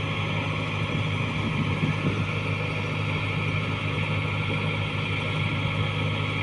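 Engine of a rice-harvest machine running steadily at an even speed, a low drone that does not change.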